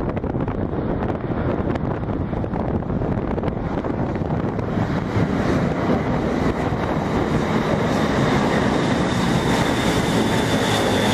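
B-52H Stratofortress's eight TF33 turbofan jet engines at takeoff power during the takeoff roll: a steady noise that grows louder, with a high whine coming in about halfway through.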